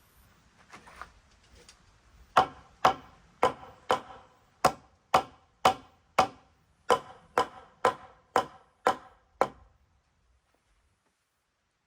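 Hammer blows on timber, about fourteen sharp strikes at roughly two a second, each with a short ring, as a cut piece of wood is fixed in place. The strikes stop and the sound cuts off near the end.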